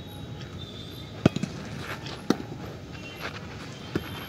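Volleyball being struck by players' hands during a rally: three sharp smacks, the first and loudest just over a second in, the next a second later and the last near the end.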